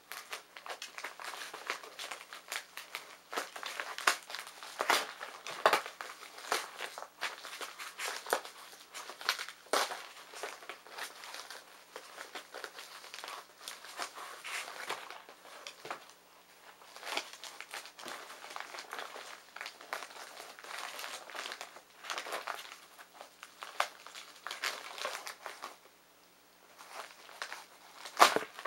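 White packing paper being crumpled and pulled apart by hand while unwrapping a parcel, in irregular crinkling rustles with a short lull near the end.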